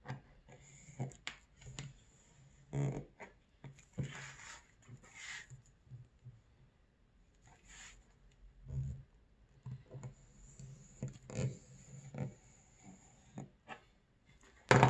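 Leather knife cutting through crocodile leather on a steel work table: a run of short irregular scraping strokes and small clicks, with a sharp knock just before the end.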